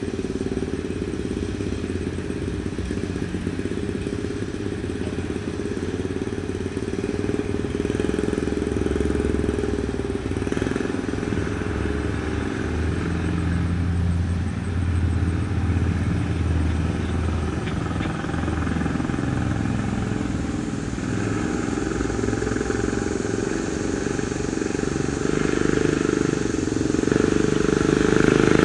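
Small single-cylinder engine of a homemade mini bike, a Predator 6.5 hp, running as the bike is ridden, its pitch rising and falling with the throttle. It gets louder near the end as the bike comes closer.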